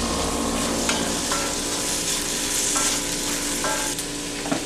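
Sliced garlic sizzling and frying in coconut oil in a cast-iron skillet, stirred with a wooden spatula, with a few sharp knocks of the spatula against the pan.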